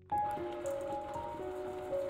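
Background music: a new piece starts suddenly, a melody of short notes stepping up and down over a light hiss.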